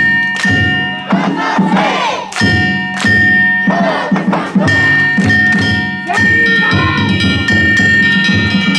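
A crowd of danjiri pullers shouting together over the float's gongs and drum (narimono). The gongs are struck again and again, and their metallic ringing holds between the strikes.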